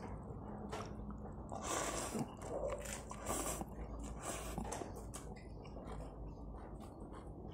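A man slurping and chewing noodles with vegetables close to the microphone, with a couple of short, louder slurps.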